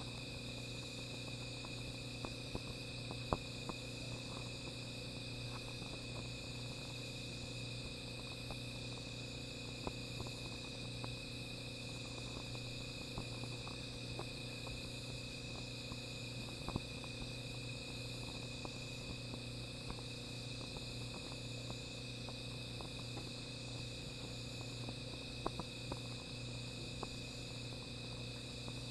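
Night insects, crickets among them, trilling in a steady chorus of several high tones. Scattered sharp pops and crackles from a small fire, the loudest about three seconds in.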